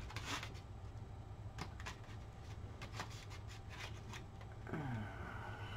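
Faint, scattered light clicks and clacks of acrylic paint bottles being handled and picked through while choosing a colour.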